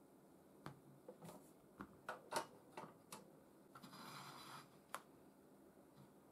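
Light clicks and taps of small hand tools and parts being put down and handled on a workbench mat, with a short rustling scrape about four seconds in.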